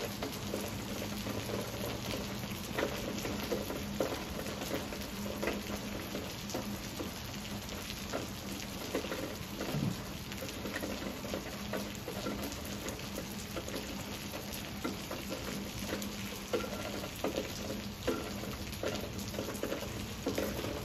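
Steady rain falling, with many individual drops tapping on nearby leaves and surfaces.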